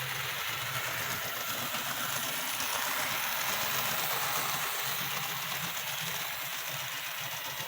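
Rivarossi Bulletnose 4-6-4 Hudson model locomotive running on the layout with its train: a steady whir of the motor and wheels on the track, growing a little louder in the middle as it comes closer, then easing off.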